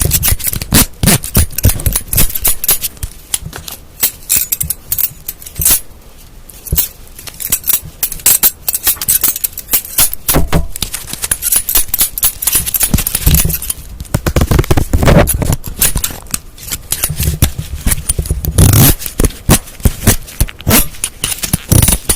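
Objects tapped, scratched and rattled close to the microphone: a fast, dense run of clicks and scrapes, thinning out for a few seconds about a third of the way in.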